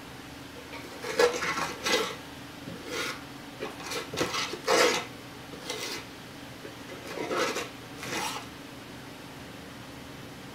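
A small tool scraping and rubbing on an old wooden cabinet in about eight short, separate strokes, ending about two seconds before the close.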